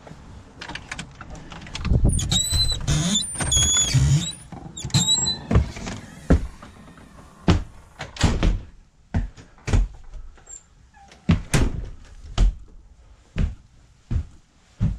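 A few high squeaks mixed with knocks, like a door being opened, then slow, deliberate footsteps on a hard floor, about one step a second.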